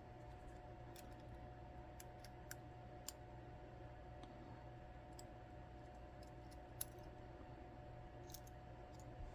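Faint, scattered light clicks of small metal lock parts and tools being handled while an ASSA Twin 6000 lock is taken apart, over a steady low hum.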